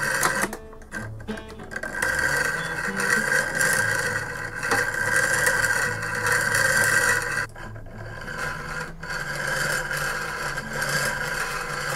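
Rapid wooden clicking and scraping from a pendulum clock's wheel of wooden clothes pegs as it is spun by hand to wind the clock, over background music. The clicking lets up briefly about seven and a half seconds in.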